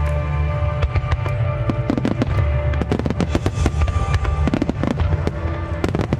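Aerial fireworks bursting in quick succession, with many sharp cracks and crackles over a continuous low rumble of booms. Music with sustained tones plays underneath.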